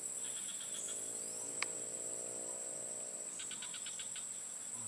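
Steady, high-pitched insect chorus of crickets. A low steady hum sounds beneath it from early on until about three seconds in, and a single sharp click comes about one and a half seconds in.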